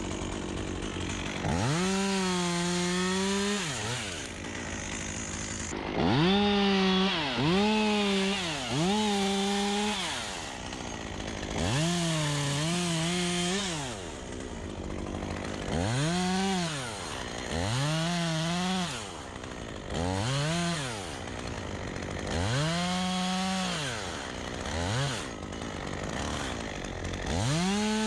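Two-stroke chainsaw cutting black poplar limbs. It revs up to full throttle and holds there through each cut, then drops back to idle, about ten times in a row.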